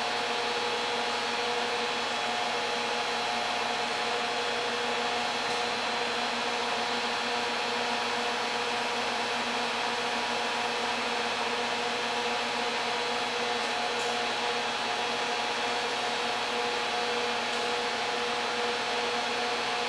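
A 10 kW resonant-lock induction heater running under load while heating a steel billet in its water-cooled coil: a steady hiss with several constant hum tones.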